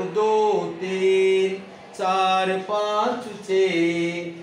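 A man's voice counting aloud in Hindi in a slow sing-song chant, about five long held notes one after another, each a number word.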